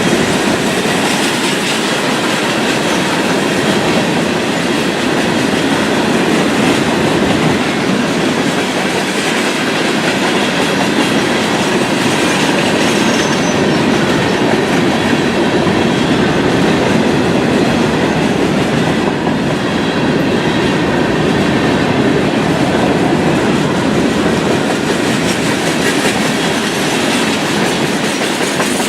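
A freight train's cars rolling past, with a steady rumble and clatter of wheels on rail that does not change.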